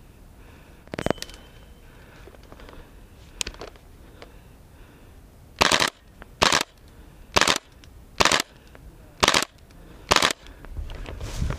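Airsoft rifle firing six short bursts of rapid shots, about one burst a second, after a couple of single sharp cracks.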